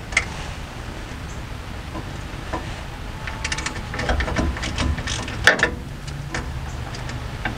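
Hand ratchet with a 10 mm socket clicking in short runs as it backs out a bolt holding the rear brake wheel cylinder to the backing plate, with one sharp clack about five and a half seconds in.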